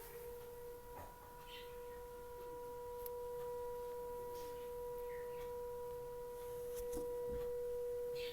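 Electric civil-defence siren sounding a steady, unwavering tone at full pitch.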